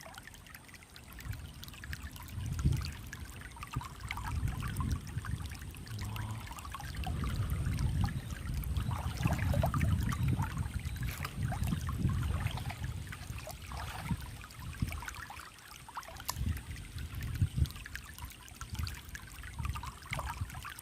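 Shallow mountain stream trickling and splashing over stones, with uneven low rumbles that swell and fade.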